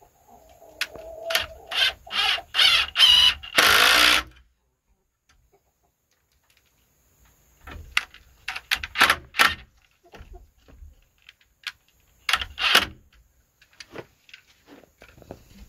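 Cordless driver driving screws into wooden perch boards in short trigger bursts. There are six in quick succession, the last and longest ending about four seconds in, then more bursts around eight to nine seconds and once more near thirteen seconds.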